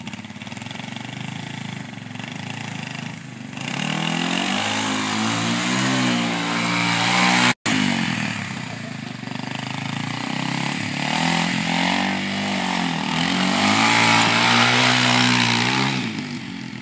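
Kawasaki Super Sherpa's single-cylinder four-stroke engine revving up and down over and over as the dirt bike is spun around in loose sand. There is a brief break in the sound about seven and a half seconds in.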